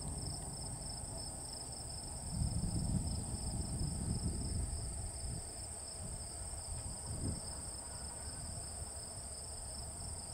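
Steady chorus of insects, a continuous high-pitched trilling, over a low rumble that swells about two seconds in and then eases.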